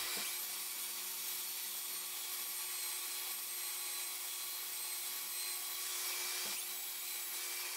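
Belt sander running steadily while sanding the face of a laminated wood board, evening out the uneven surface.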